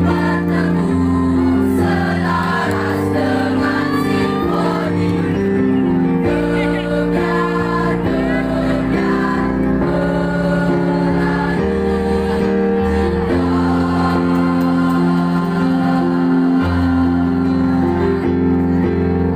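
A mixed school choir of girls' and boys' voices singing in harmony, holding long chords that change every second or two.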